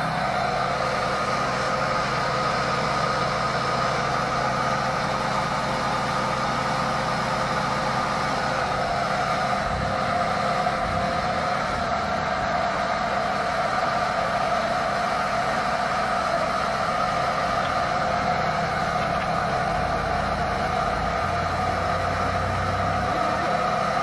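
Engine running steadily at idle, a low hum with a steady whine above it and a slightly heavier low rumble near the end.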